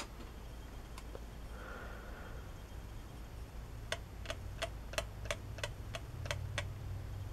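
Small metal watercolour tin handled with a knock as it is brought in and another a second later, then a paintbrush tapping in a half pan of the tin: about nine light clicks at roughly three a second, each with a faint ring.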